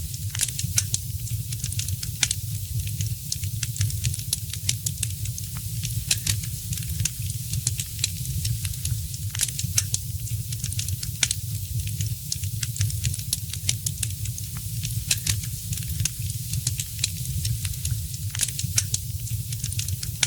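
Wood fire crackling: frequent irregular sharp snaps and pops over a steady low rumble.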